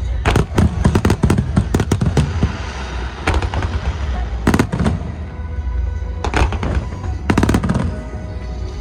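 Aerial fireworks bursting in quick volleys of sharp bangs and crackle, coming in several clusters about a second apart, with music playing underneath.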